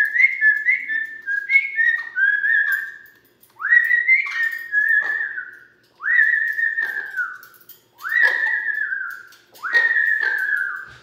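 Amazon parrot whistling a tune: a quick run of short whistled notes, then several longer whistles about two seconds apart, each sliding down in pitch at its end.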